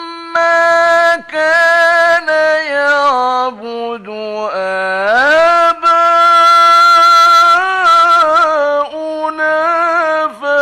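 A male Quran reciter drawing out a phrase in the melodic mujawwad style of recitation, in several long held notes with brief breaks between them. The notes waver in quick ornaments, and about halfway through the voice glides up into a long sustained note.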